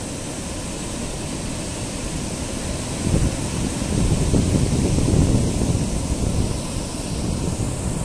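Rough monsoon surf on the Andaman Sea breaking on a sandy beach: a steady wash of foam, with a louder low rumble of a breaking wave about three seconds in that fades over the next few seconds.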